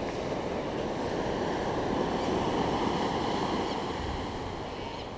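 Ocean surf breaking and washing up the beach, a steady rush that swells about halfway through and then eases off.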